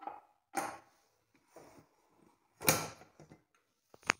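Stainless-steel pressure cooker being opened: a few short metal clunks and scrapes as the weight is lifted off and the lid is worked free, the loudest a little under three seconds in, then a sharp click near the end.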